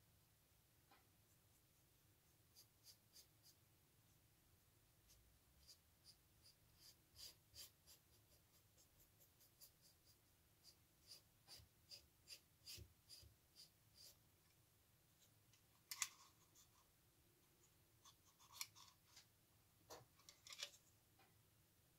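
Faint strokes of a paintbrush applying wood stain to a wooden box, short scratchy strokes in quick runs. Then come a few louder knocks and clatters as the wooden box is picked up and turned.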